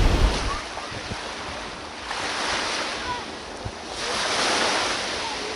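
Small waves breaking and washing up a pebble shore, the hiss of the surf swelling twice, with a brief low rumble of wind on the microphone at the start.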